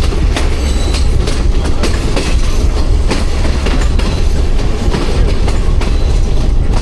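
A passenger train running on the rails: a loud steady low rumble with irregular clattering and knocking from the wheels and carriages.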